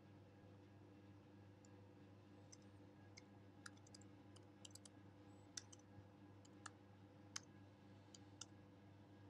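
Faint, irregular keystrokes on a computer keyboard as code is typed, starting about two seconds in, over a low steady hum.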